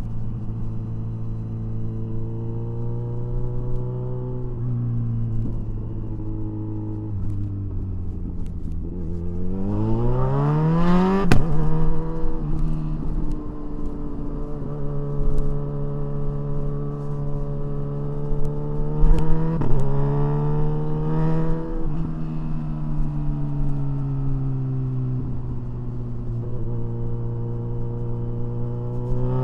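Kawasaki Ninja 1000SX inline-four engine and exhaust heard from the rider's seat, holding steady revs, then revving up hard about ten seconds in and clicking through a quickshifter upshift. It rises briefly again around twenty seconds in before settling back to a steady drone.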